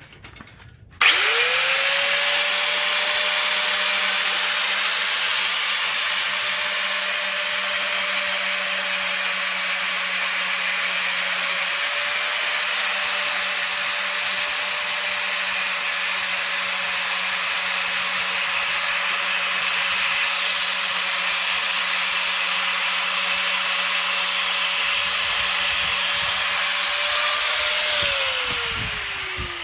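Electric grinding tool spinning up about a second in and grinding a steel motorcycle drive-chain link, a steady high whine over a harsh grinding hiss. Near the end it is switched off and the whine falls away as it winds down.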